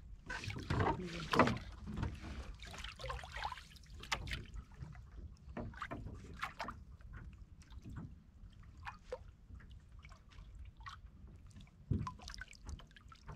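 Hand line being hauled in over the side of a wooden fishing boat: scattered small clicks, knocks and rustles of line and hands against the hull over a low steady rumble. Near the end comes one louder knock with a splash as the line comes up out of the water.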